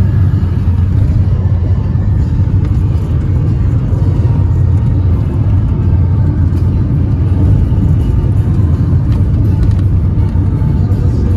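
Car driving on the road, a steady low rumble of engine and tyres, with samba music playing underneath.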